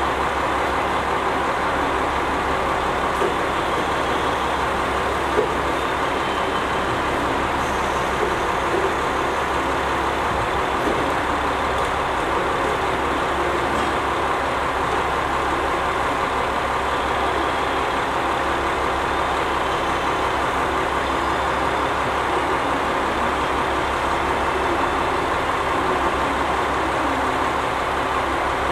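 Diesel engine of a stationary KiHa 40-series railcar idling steadily.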